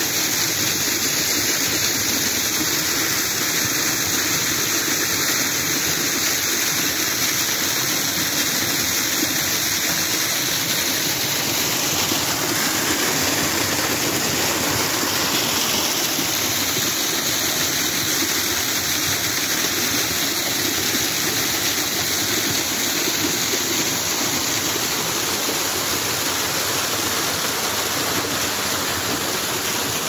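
Small waterfall pouring down a rock face and splashing onto the rocks below: a steady rush of falling water.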